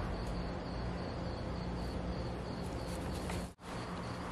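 Crickets chirping steadily over a low, steady hum, with a brief dropout near the end.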